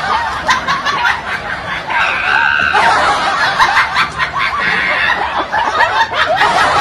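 A person giggling and laughing in quick, repeated bursts.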